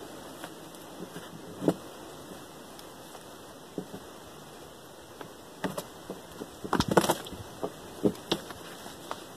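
Bark being pried and peeled off a felled log: scattered cracks and knocks, busiest and loudest about seven seconds in.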